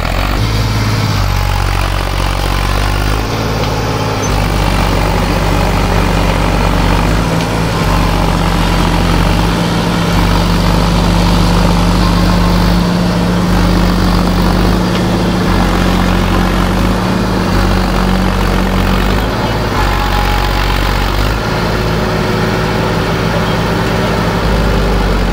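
Heavy vehicle diesel engines running steadily, from the tractors and tipper truck of a river-bed recovery. A slow rise in pitch comes in the last few seconds.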